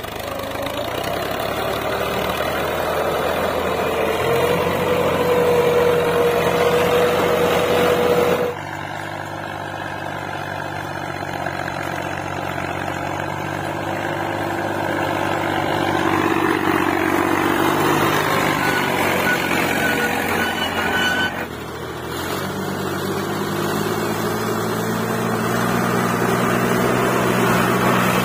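Al-Ghazi tractor's diesel engine working under load, its pitch climbing over the first several seconds. The sound breaks off abruptly twice and picks up again, ending in a steady, heavy run.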